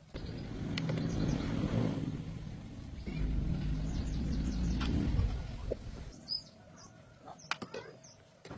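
A motor rumbling in two bursts of about two seconds each, then a few light clicks.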